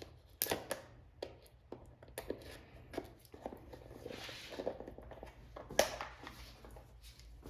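Light handling noises from a small packaged kit of rubber bump stops: scattered clicks and taps, with a brief rustle about four seconds in.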